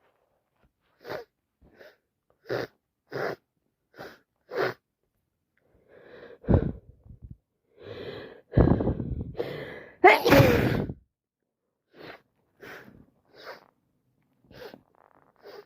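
A person with a heavy head cold sniffling in short sharp bursts, then gasping into a run of loud sneezes about six to eleven seconds in, the last and loudest a drawn-out voiced one, followed by more sniffles.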